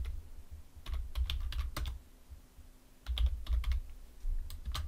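Typing on a computer keyboard in three short bursts of keystrokes: about a second in, about three seconds in, and near the end.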